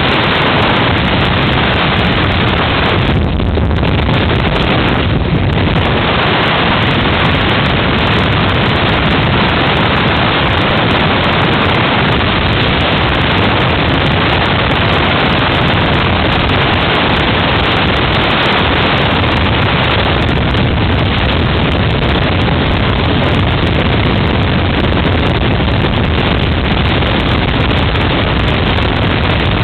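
Helicopter engine and rotor running in steady flight, heard from inside the cabin as a loud, even rush of noise.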